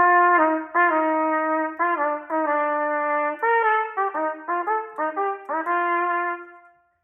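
Solo trumpet playing a short etude passage in a bouncy 9/8 with tied notes: a string of separately tongued notes mixed with long held ones, ending on a sustained note that fades out near the end.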